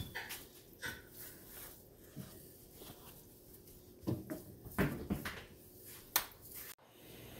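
Hands scooping and shaping raw minced-meat kebab mixture into balls: soft squishing with scattered light taps and knocks, the sharpest about five and six seconds in.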